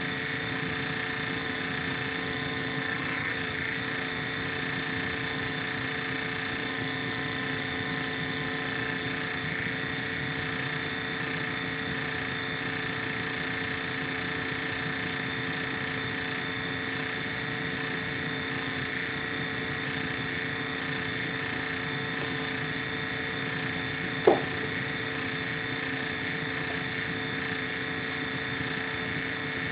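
INSYS GameForce gaming laptop's cooling fan running steadily, a rushing air noise with a whine of several fixed pitches on top: the strange noise its owner is recording as abnormal. One short sharp sound stands out about 24 seconds in. Heard through a phone microphone, somewhat distorted.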